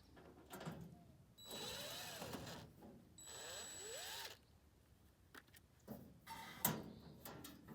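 Cordless drill/driver backing out the screws of a panel on an outdoor wood furnace: two runs of about a second each, followed by a few light clicks and knocks as the parts are handled.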